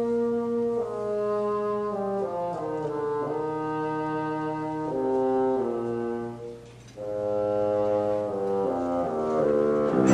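Symphony orchestra playing a slow, quiet passage of long held notes in a few parts that step from chord to chord. It thins to a brief hush about two-thirds through, then the full orchestra comes in much louder at the very end.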